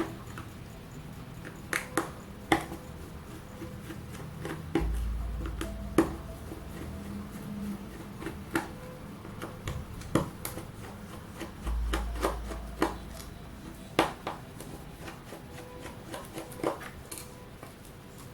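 Irregular small clicks and taps of hand tools and plastic and metal phone parts being handled while a OnePlus 2 smartphone is taken apart for a battery replacement.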